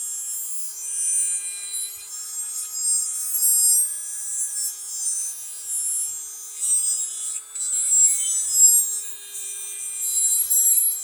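Dremel rotary tool at its highest speed grinding the edge of a steel lawn mower blade. A steady motor whine runs under a high grinding rasp that swells and fades as the bit is worked along the edge.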